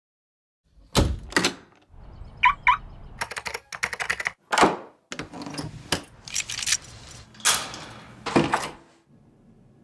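A run of sharp clicks and thunks: keys tapping on a computer keyboard, and a door's deadbolt and knob being turned and locked. Two short rising chirps come about two and a half seconds in.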